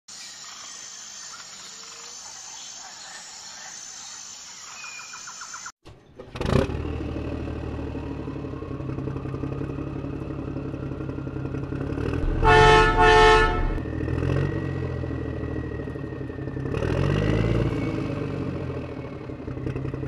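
An engine runs with a steady drone from about six seconds in, after a quieter stretch. A horn sounds twice about halfway through.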